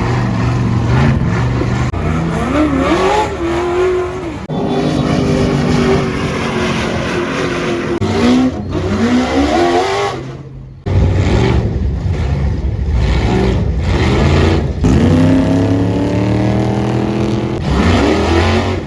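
Off-road race buggy engines revving hard, heard in several short clips one after another. The pitch climbs steeply several times, with a brief drop in level about halfway through.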